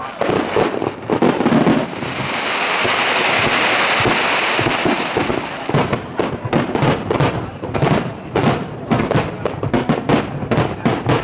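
Aerial fireworks shells bursting: a few sharp bangs, then a dense hiss that swells and fades, then a quick run of sharp bangs, several a second.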